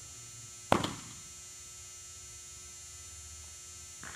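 A pitched baseball smacks into a catcher's mitt once, a sharp loud pop about a second in, over a steady electrical hum.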